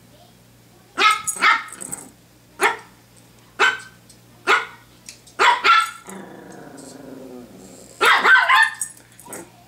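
Pomeranian barking during play: a string of short, sharp barks, a low growl lasting about a second and a half in the middle, then a quick cluster of barks near the end.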